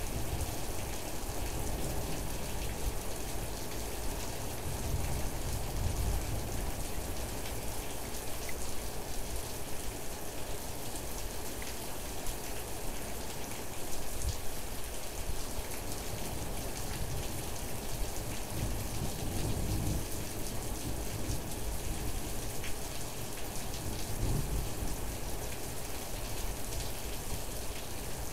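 Steady rain falling in a storm, pattering on surfaces, with a low rumble underneath that comes and goes.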